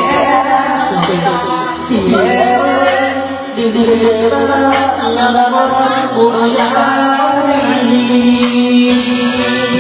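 Male singer singing live into a handheld microphone over backing music, amplified through a venue sound system whose sound the uploader calls poor.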